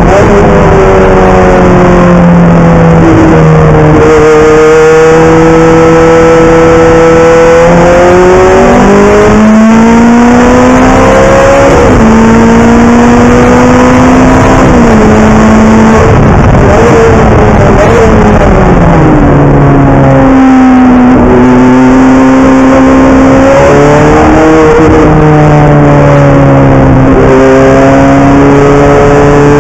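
Ferrari F430 GT race car's V8 engine heard loud from inside the cockpit at racing speed, its pitch repeatedly climbing and dropping as the driver accelerates, shifts gears and brakes through the corners, with a rougher, noisier stretch about halfway through.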